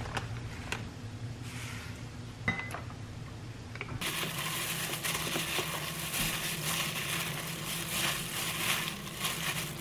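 A spoon clinks against a glass mixing bowl a few times while seasoning goes in. From about four seconds in, a plastic-gloved hand tosses napa cabbage with the seasoning in the bowl: the glove crinkles steadily and the wet leaves rustle and squish.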